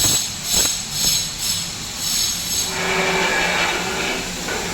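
Air-washer duct system blowing, a steady rush of air. For the first couple of seconds a light rustling rattle repeats about twice a second, then the airflow noise settles and steadies.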